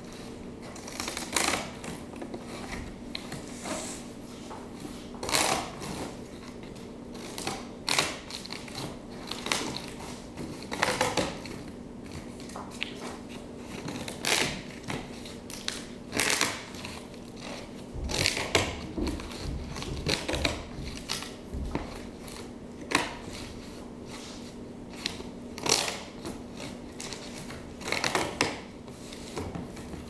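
Something being cut in short, crisp strokes, irregularly spaced about one to three seconds apart, over a faint steady hum.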